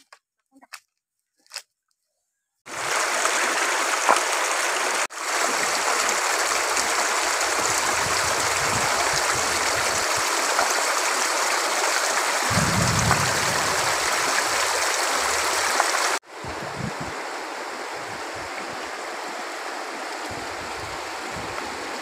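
Shallow, rocky river running with a steady, even rush of water. It starts abruptly about three seconds in, after a few faint clicks, and carries on somewhat quieter from about sixteen seconds in.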